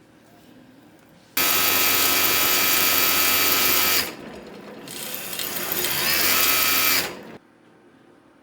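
An electric bike's 80100 brushless outrunner motor and chain drive whining under throttle. The whine starts suddenly and holds steady, eases off, then builds up again and cuts off suddenly.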